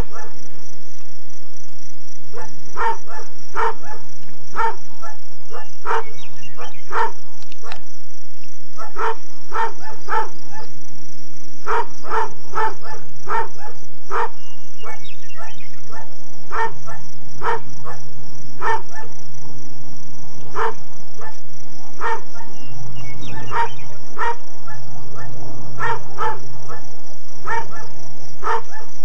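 A dog barking over and over, short barks about two a second, with a steady low hum underneath.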